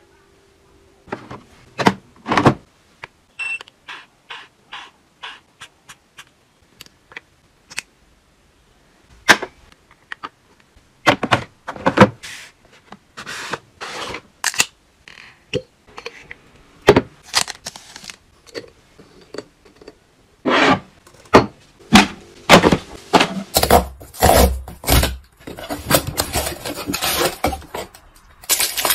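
Plastic containers and packaging handled while stocking a fridge: a string of light clicks and taps, then louder knocks and scrapes as items are set down, growing busier toward the end, where a steady rustling rush comes in.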